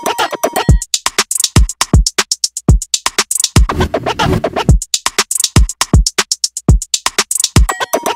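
Background music: an electronic beat with a steady rhythm of deep drum-machine kicks and crisp hi-hats.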